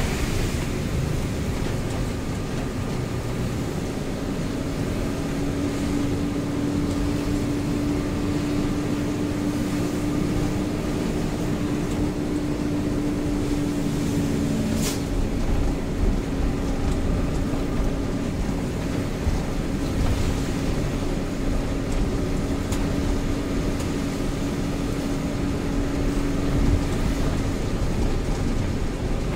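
Mitsubishi Fuso truck driving on a wet road, heard from inside the cab: a steady engine drone and road rumble, with a steady hum through most of it and a single sharp click about halfway.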